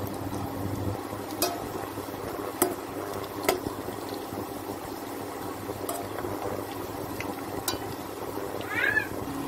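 Sliced onions frying in hot oil in a steel pot, a steady sizzle, as they cook down into birista (fried onions for biryani). A slotted spatula stirring them clicks against the pot's sides four times, and a steady low hum runs underneath.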